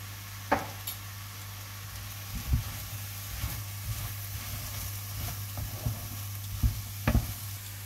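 Wooden spatula stirring sautéing vegetables, oats and spices in a non-stick frying pan, with light sizzling and irregular knocks and scrapes of the spatula on the pan. There is a sharp knock about half a second in, and a steady low hum underneath.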